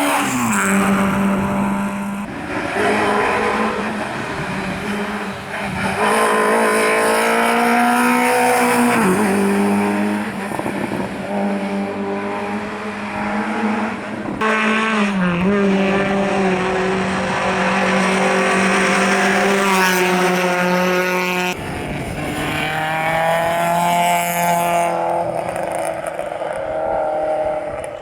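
Rally car engines at racing speed, revving hard and dropping in pitch at gear changes and braking. The sound cuts abruptly between passes a few times.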